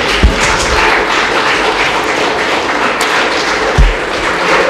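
Applause, a steady dense patter, with two dull low thumps: one just after the start and one near the end.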